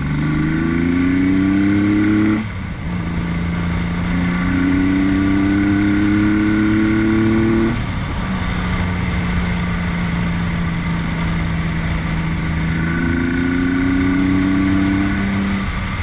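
Yamaha XS850 inline-three motorcycle engine pulling up through the gears, with wind rushing past. The pitch climbs and drops at shifts about two and a half seconds in and again near eight seconds, holds steady at cruise, then climbs again and eases off near the end. It is running on freshly rebuilt Mikuni carburettors, before any mixture adjustment.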